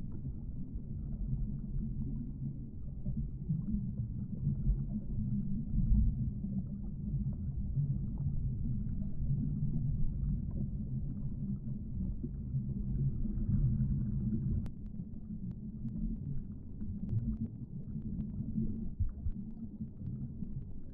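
Muffled underwater rumble and water movement picked up by a submerged camera. A few faint clicks come in the second half.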